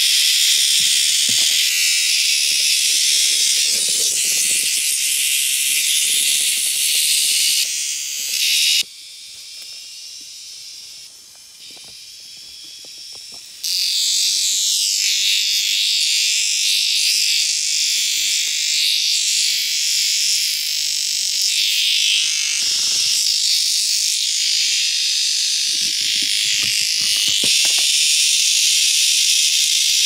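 Dense night chorus of insects and frogs calling, loud and steady and high-pitched, with faint rustles and knocks underneath. It drops away abruptly about nine seconds in and returns just as suddenly some five seconds later.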